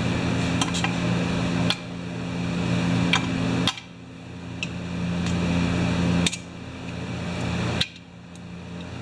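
Light metallic clicks and taps as small chainsaw parts are handled and picked up with a magnetic pickup tool, a handful of separate clicks over a steady low hum that cuts out abruptly a few times.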